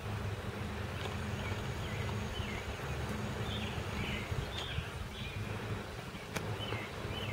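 Wind buffeting the microphone as a steady low rumble, with small birds chirping over and over in the background and one sharp click about six seconds in.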